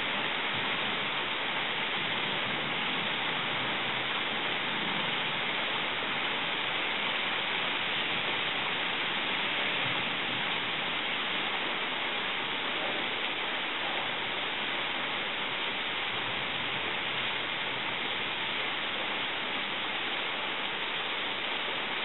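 Steady rain falling, an even hiss that neither swells nor breaks, with no thunder.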